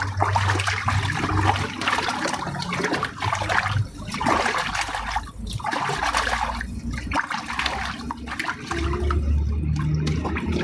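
Water pouring and splashing while dishes are washed, briefly broken off a few times. A low hum is heard at the start and again near the end.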